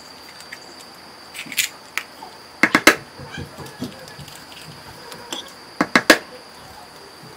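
Eggs being cracked on the rim of a plastic mixing bowl: quick clusters of sharp taps about a second and a half in, near three seconds, and about six seconds in.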